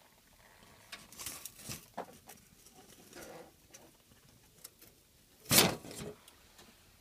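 Scattered light rustles and clicks of handling noise, with one louder knock about five and a half seconds in.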